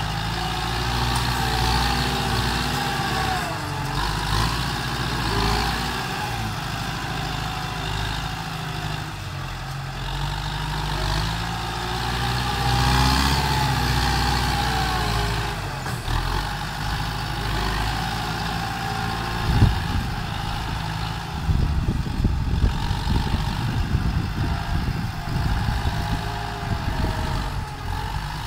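Kubota tractor's diesel engine running while pushing soil with its front blade, its pitch rising and falling with the load. From about two-thirds of the way in, a rough, irregular low rumbling joins it.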